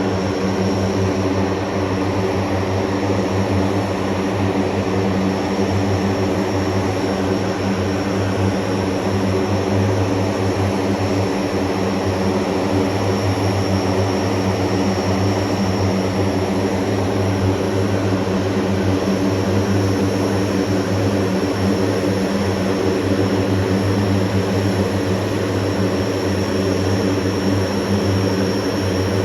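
A propeller aircraft's engines running steadily: an unchanging deep drone with a thin high whine over it.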